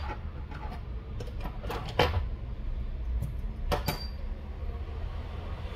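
A few light taps and two sharp clicks, about two seconds in and just before four seconds, from handling an opened smartphone and its parts on a workbench, over a low steady hum.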